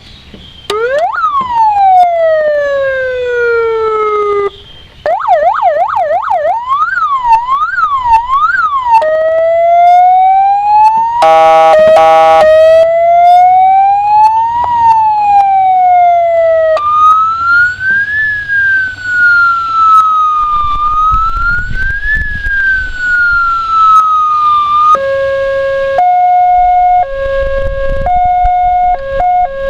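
100-watt electronic siren through its speaker, stepping through its tones: a single falling wind-down, then a fast yelp, then a slow wail broken briefly by a short horn blast, then a second, higher wail, and from near the end a two-tone hi-lo alternation.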